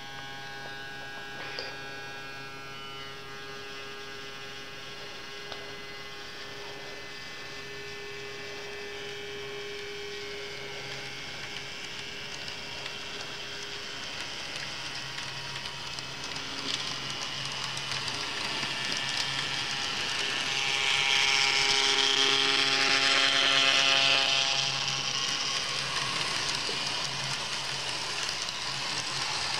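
Minitrix N-scale ICE model train running on its track: the small electric motor whines with a stack of steady tones, growing louder as the train passes close by, with a hiss of wheels on rail that is loudest about three quarters of the way through.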